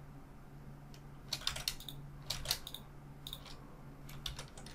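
Computer keyboard keys clicking in four small clusters as shortcut keys are pressed, including Shift and Ctrl+Z twice. A faint steady low hum runs underneath.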